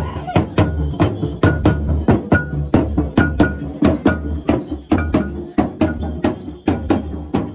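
Double-headed barrel drums of a Kabasaran procession, struck with sticks in a steady, even rhythm of about three strokes a second, with a short higher ring on some beats.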